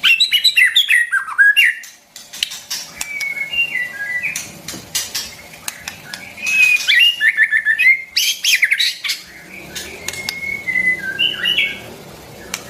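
White-rumped shama singing: several phrases of varied whistled notes and quick runs, with short pauses between them. The loudest phrases come at the start and again about six to eight seconds in.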